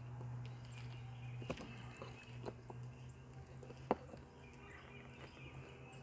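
Faint clicks and scrapes of a small nailed-on hull ID plate being pried off a dinghy's transom, with one sharp click about four seconds in, over a steady low hum.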